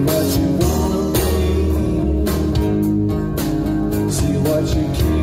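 Music led by a guitar, loud and steady.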